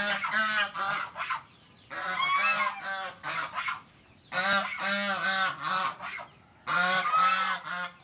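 A flock of waterfowl honking: rapid, pitched honks in four bursts of about a second and a half each, with short quiet gaps between them.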